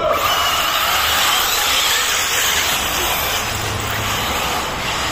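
RC buggies racing on a loose sand track: a steady, loud wash of motor whine and tyre noise that starts suddenly.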